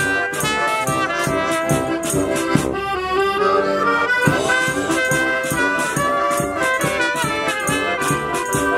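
Street band of clarinet, accordion, trumpet, sousaphone and drum kit playing an instrumental tune together, the drums and cymbals keeping a steady beat.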